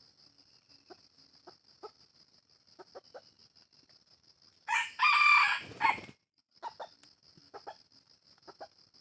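Red junglefowl rooster giving one short crow, a little over a second long, about halfway through. Soft clucks come now and then before and after it, over a steady high buzz in the background.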